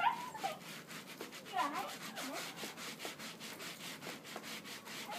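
Quick repeated rubbing or scraping strokes, about four or five a second, with faint voices briefly in the background partway through.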